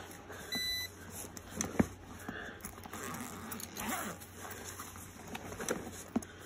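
Handling noise as a fabric tool bag full of hand tools is turned around: rustling and a few knocks, the sharpest about two seconds in. A short high beep sounds about half a second in.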